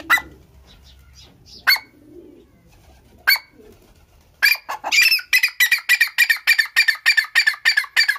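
Grey francolin calling: three single sharp notes about a second and a half apart, then, about halfway through, a fast run of loud repeated notes, about four or five a second.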